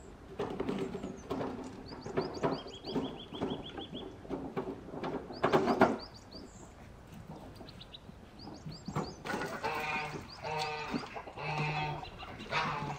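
Farm animals calling repeatedly, the calls coming in a run in the last few seconds, with small birds chirping earlier on.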